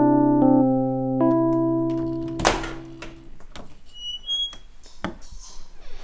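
Electric piano chords held and then fading out about three seconds in. A sharp clatter comes about two and a half seconds in, followed by quieter room sounds: a few knocks, two brief high tones, and a thump near the end.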